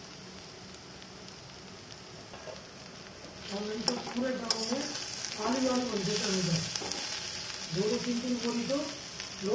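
Chopped bitter gourd frying in oil in a kadhai, a steady sizzle as chopped garlic goes in and is stirred through with a spatula. From about three and a half seconds in, a voice is heard in three short stretches over the sizzle.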